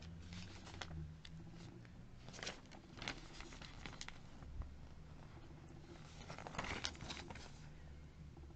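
Faint rustling and crackling of a folded paper brochure being opened and handled, in a few short spells, over a low steady background hum.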